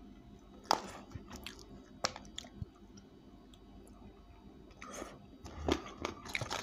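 A person biting into and chewing crispy spicy fried chicken, with sharp crunches: one a little under a second in, another about two seconds in, and several close together near the end.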